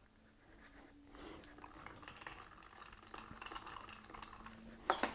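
Faint trickling and dripping of intercoat squeezed from an upturned squeeze bottle into a plastic cup of paint, with a couple of small clicks near the end.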